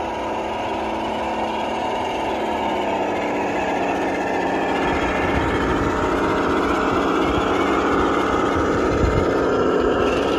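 Traxxas TRX-4 High Trail RC truck's electric motor and gearbox whining steadily as it drives under the load of a trailer, the pitch dipping slightly near the end.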